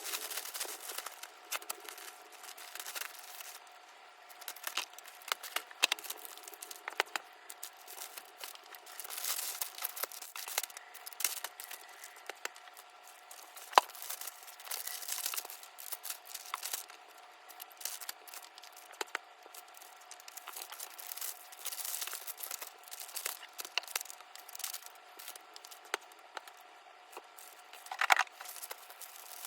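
Packing sounds: plastic and paper wrapping being handled, rustling and crinkling in irregular swishes, with scattered sharp clicks and taps.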